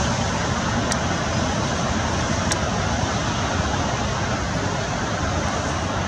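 Steady roar of road traffic noise with no distinct events.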